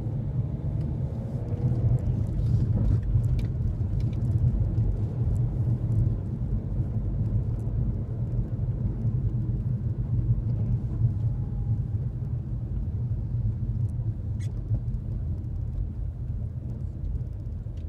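A car being driven, heard from inside the cabin: a steady low rumble of road and engine noise.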